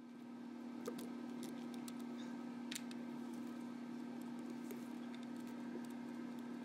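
Faint clicks and rustling of gloved hands working an ignition coil's plastic connector, over a steady low hum, with one sharper click about three seconds in.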